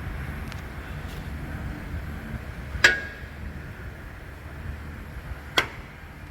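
Two sharp metal clanks about three seconds apart, the first louder with a brief ringing tone, over a steady low rumble.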